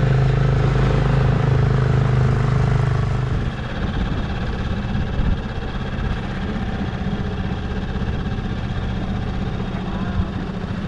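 Inflatable dinghy's outboard motor running at speed with a steady low hum. About three and a half seconds in it drops to a slower, quieter run as the boat creeps along.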